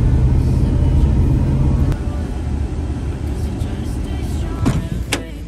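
Car cabin noise: the engine and tyres run with a steady low rumble that drops off about two seconds in as the car slows into a parking lot. Two sharp clicks follow near the end.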